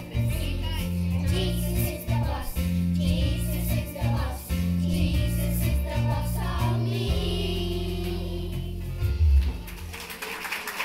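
Children's choir singing with an instrumental accompaniment that has a steady bass line; the music ends about nine and a half seconds in.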